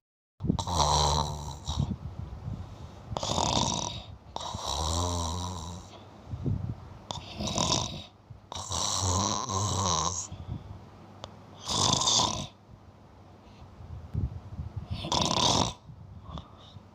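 Sleeping domestic cat snoring: a rasping snore on each breath, about seven in all, every two seconds or so, some with a buzzing tone.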